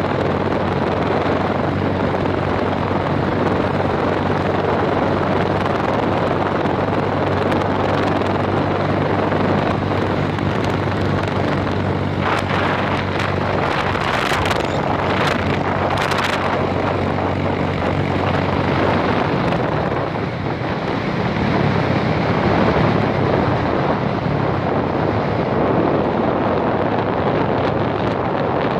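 Wind rushing over the microphone of a moving motorcycle, with the steady low drone of its engine at cruising speed underneath. The drone fades about two-thirds of the way through. Several sharp crackles come about halfway through.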